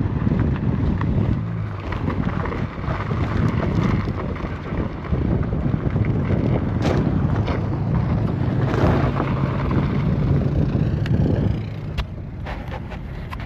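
A car driving over lake ice: a steady low drone of engine and tyres under heavy wind rush on the microphone, with a few small clicks. The wind noise drops a little over eleven seconds in.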